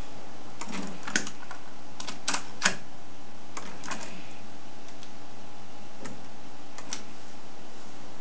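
Sharp mechanical clicks from the Akai GX-95 cassette deck's buttons and tape transport as it is set going, coming in small clusters of two or three over a steady hiss.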